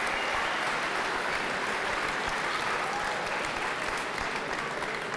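Audience applauding: dense, steady clapping that begins to thin out near the end.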